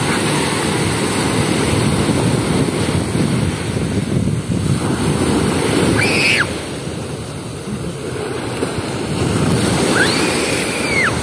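Sea surf washing and breaking at the shore, a steady rushing noise with wind rumbling on the microphone. Short high-pitched cries rise and fall about six seconds in and again near the end.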